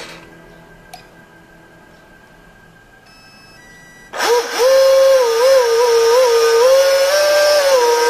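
RC boat's electric drive motor run up on the bench by radio throttle: a few short electronic beeps, then about four seconds in a loud whine that sweeps up sharply, wavers up and down in pitch as the throttle is worked, and winds down near the end.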